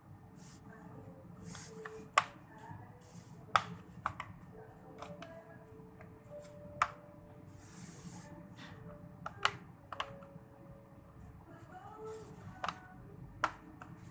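A plastic prying tool working the plastic bottom case of an Asus TUF FX506LI laptop loose, giving sharp plastic clicks and snaps at irregular intervals, about nine in all.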